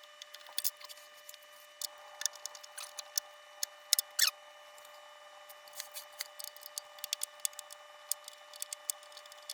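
Irregular small clicks, ticks and scrapes of parts being unscrewed and worked loose by hand from a CRT television's chassis, over a faint steady hum.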